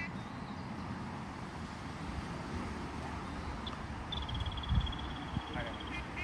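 Ducks quacking once or twice at the start and again at the end, and in between a high, rapid bird trill lasting about two seconds, over a steady low rumble of wind and handling on the microphone.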